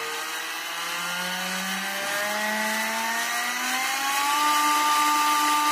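Small yellow plastic-geared DC motor spinning a toy truck's rear axles and wheels, its whine climbing steadily in pitch as a speed controller turns it up, then holding steady at full speed from about four and a half seconds in.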